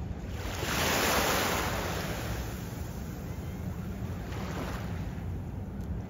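Small sea waves washing onto the beach: a hissing wash swells up about a second in and fades, and a fainter one follows later, over a steady low rumble.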